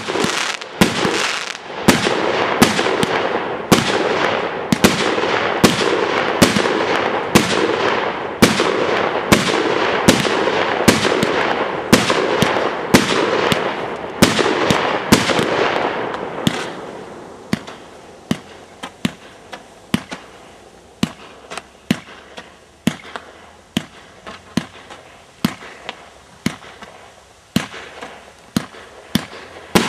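Fireworks firing shot after shot, about two sharp bangs a second over a dense crackling haze. A little over halfway through the crackle dies back, leaving separate bangs with quieter gaps between them.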